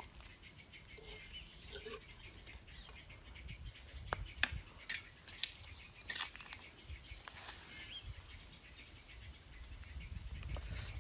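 Quiet outdoor ambience with a low wind-like rumble, a handful of sharp clicks and knocks between about four and six seconds in from handling pots and utensils, and a faint bird chirp.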